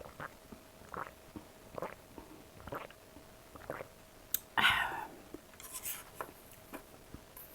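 Close-miked chewing and mouth sounds of eating, soft and spaced about once a second, with one louder, longer sound a little past the middle.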